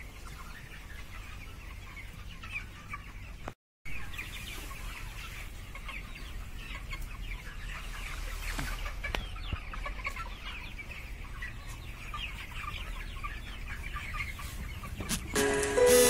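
A large flock of broiler chickens cheeping and clucking, a dense steady chatter of many short calls, broken by a brief drop to silence a few seconds in. Music comes in near the end.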